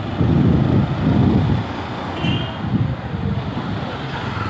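Low rumble of a vehicle ride through a street with traffic, loudest in the first second and a half, with a short high-pitched tone about two seconds in.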